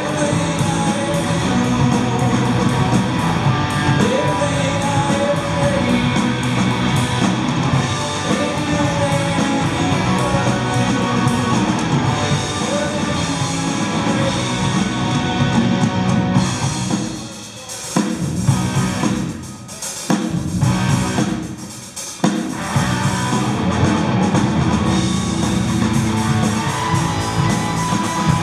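Rock band playing: electric guitar, bass and drum kit. About two-thirds through, the band drops out briefly, with a few sharp accented hits between short gaps, then comes back in.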